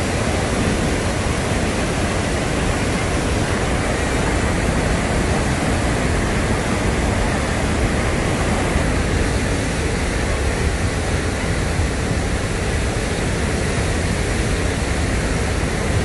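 Swollen, muddy floodwater pouring over a wide rocky waterfall and rapids: a loud, steady rushing of white water without a break.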